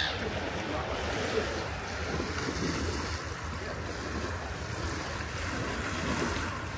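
Steady outdoor wind and water noise, with wind buffeting the microphone.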